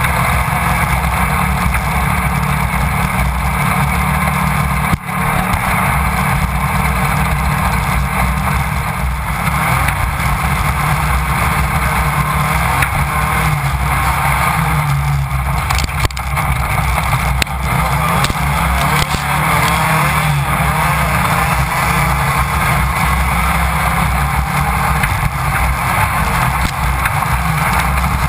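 A Class 1600 off-road race buggy at speed, heard from inside the car. Its air-cooled 1600 cc VW engine runs at high revs, its pitch rising and falling with the throttle, under a constant rush of wind and rattling from the chassis.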